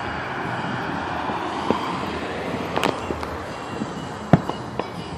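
Distant aerial firework shells going off: a few sharp bangs, the loudest about four seconds in, with smaller pops between, over a steady hum of road traffic.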